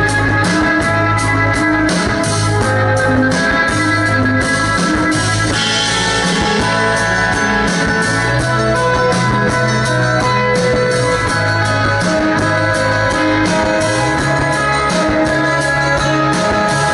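Live rock band playing: held keyboard chords over a repeating bass line with a steady drum beat.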